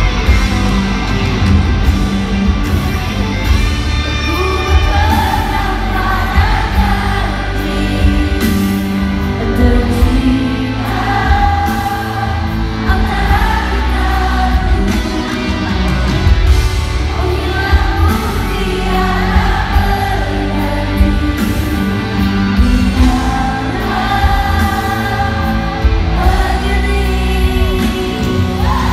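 Live rock band in a large arena, with drums, bass and guitars, backing a female lead singer in a slow song, picked up by a phone among the audience with heavy, booming bass.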